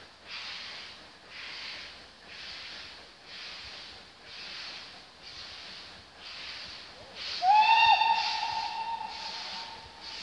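Distant steam locomotive working, its exhaust beats coming as a rhythmic chuff about once a second. About seven seconds in it sounds its whistle: one long note that slides up briefly at the start, then holds for about two and a half seconds.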